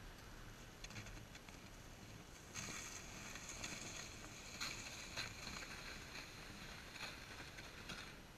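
Two loaded ice-fishing sleds dragged over crusted snow close by: a hissing scrape that starts suddenly about two and a half seconds in, with a few sharper scratches, and stops near the end.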